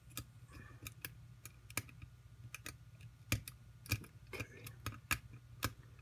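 Lock pick and tension wrench working the pin stacks of a pin-tumbler lock: scattered small metallic clicks and crunching at irregular intervals, as the plug drops into a deep false set.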